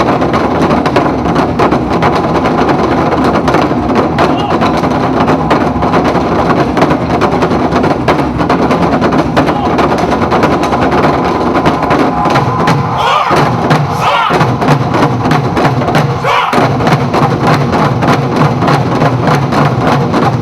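Music with dense, rapid percussion, with a few short rising tones a little past halfway.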